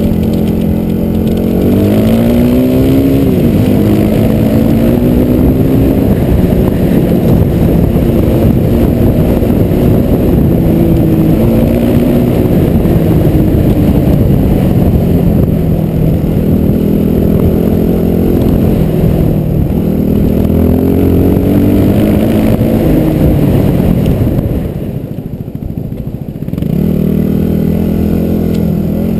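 A motor vehicle's engine running loud. It is steady at first, the revs rise about two seconds in, then keep rising and falling under changing throttle. The engine drops quieter briefly near the end, then settles back to a steady note.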